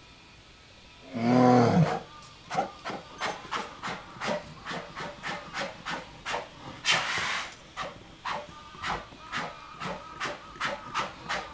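An excited male polar bear gives one loud growling call about a second in, then a rapid run of short huffing breaths, about two or three a second, with a longer breathy huff near the middle.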